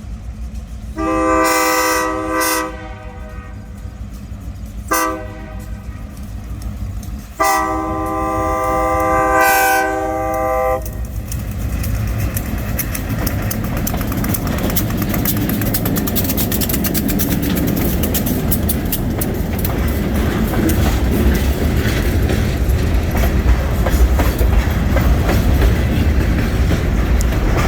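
Great Lakes Central Railroad locomotive horn sounding a long blast, a short one and a final long one, the end of a grade-crossing signal. The horn then gives way to the steady rumble and clickety-clack of the train's wheels passing close by, growing slightly louder toward the end.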